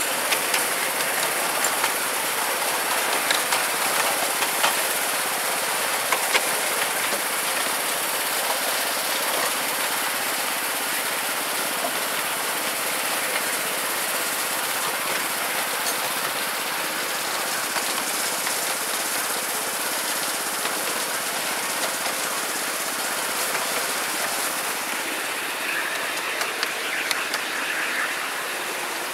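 Miniature railway train running along its narrow-gauge track: a steady rattle of the carriage wheels on the rails, with scattered small clicks.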